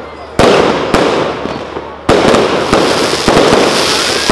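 Aerial fireworks bursting overhead: two big bangs, about half a second in and about two seconds in, with several lighter reports between and after, each fading slowly away.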